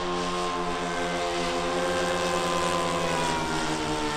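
The two four-stroke glow engines of a radio-controlled Cessna 337 Skymaster model, an O.S. 95 pulling in front and a Magnum 91 pushing behind, droning steadily in flight. Both engines run under throttle together as a layered hum, and the pitch slides slowly down over the last second or so.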